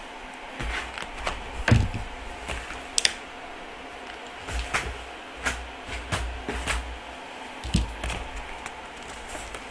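A cardboard shipping box being cut open with a knife and handled: scattered sharp clicks, scrapes and knocks at irregular intervals, with low rumbling from the box being moved.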